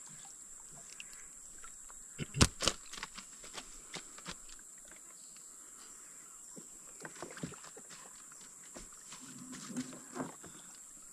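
Scattered knocks and taps, the loudest a pair of sharp knocks about two and a half seconds in, over a steady high-pitched whine.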